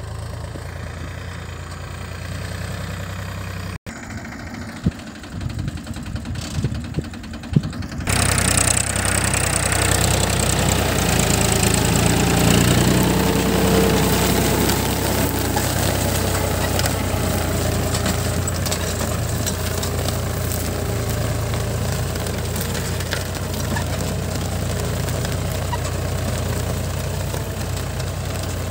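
Tractor engine running under load while it pulls a mounted disc plough through the soil. It is fainter and steady at first, then much louder and closer from about eight seconds in.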